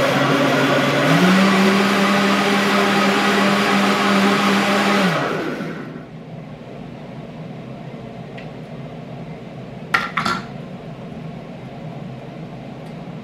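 Countertop blender running with a green liquid in the jar, its motor stepping up to a higher speed about a second in, then switched off about five seconds in and winding down. A lower steady hum carries on after it, with two quick sharp knocks near ten seconds.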